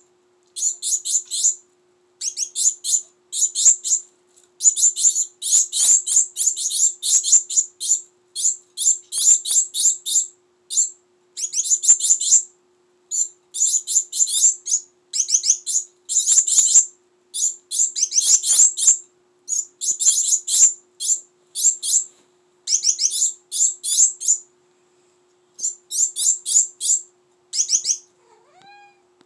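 Juvenile Gouldian finches begging to be fed: rapid high-pitched chirps in bursts of a second or two with short gaps, over a faint steady hum.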